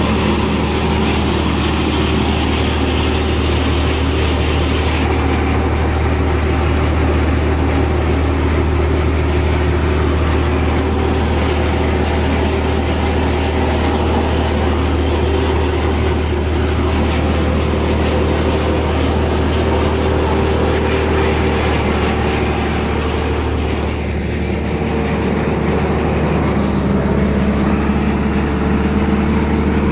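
Heavy engine of groundnut harvesting machinery running steadily at a constant speed, with a strong deep hum.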